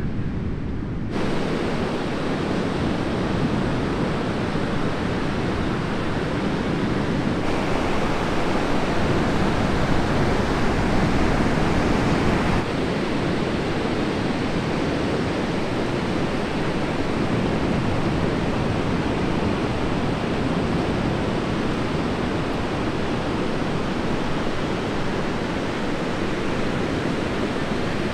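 Heavy ocean surf from a hurricane swell, breaking and washing as a steady rush of noise with some wind on the microphone. The sound shifts abruptly a few times, where clips are cut together.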